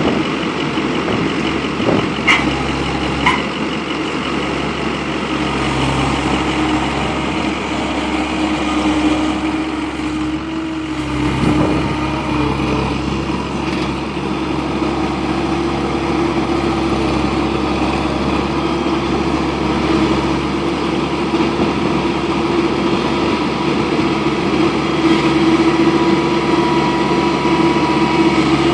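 Skid steer engine running steadily, with two sharp knocks about two and three seconds in.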